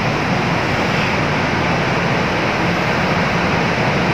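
Steady rushing background noise at a constant level, with no distinct events.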